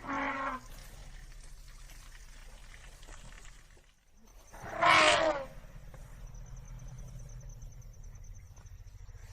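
African elephant calling: a brief call right at the start, then a louder call that falls in pitch about five seconds in, over a faint low background.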